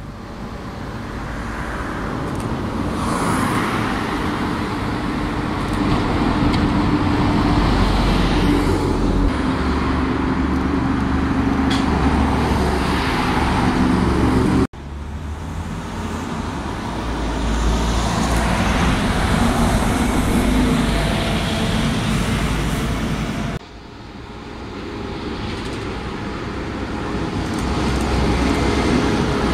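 Buses driving past on a road, engine tones and tyre noise rising and falling as they go by, over general traffic. The sound cuts off abruptly twice, about halfway and about four-fifths of the way through, and picks up again each time.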